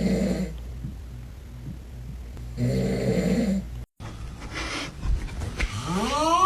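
A sleeping person snoring loudly: two long, rough snores about three seconds apart. After a sudden cut near the middle, a pitched sound rises in pitch near the end.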